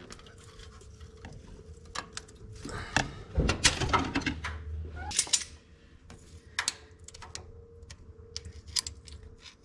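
Metal hand tools clinking and scraping: vice grips and pliers worked against a freeze plug in the engine block to bend it out, in scattered sharp clicks with a busier stretch of scraping about three seconds in.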